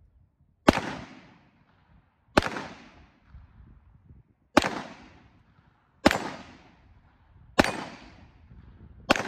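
Six single shots from a Grand Power Stribog 9mm semi-automatic pistol, fired slowly about one and a half to two seconds apart, each followed by a short echo.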